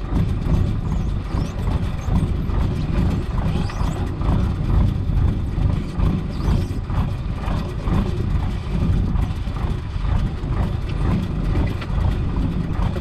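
Fishing boat's engine running with a steady low rumble while the net is hauled aboard, with a quick rhythmic knocking from the hauling gear and the net working over the side.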